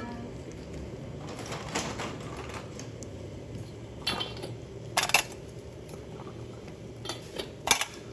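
Scattered sharp clicks and clinks of small tools and containers being handled on a metal instrument trolley, loudest around the middle and near the end, over a steady low hum.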